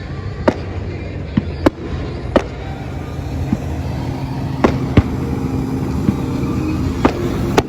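Fireworks bursting overhead: about ten sharp bangs at irregular intervals, some close together, over a steady low hum.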